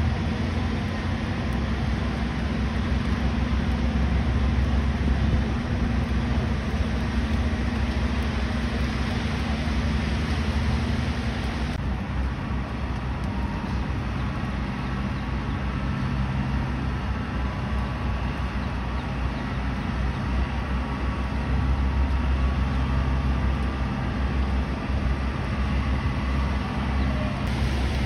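Steady low rumble of city traffic, its character changing abruptly about twelve seconds in and again near the end.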